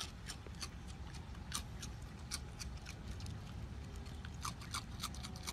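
Raccoon chewing Froot Loops cereal taken from a person's hand: faint, irregular crunching clicks over a low steady hum.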